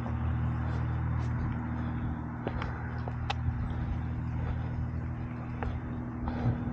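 Onewheel GT electric board's hub motor humming steadily while riding, with a rushing noise and a few brief high ticks over it.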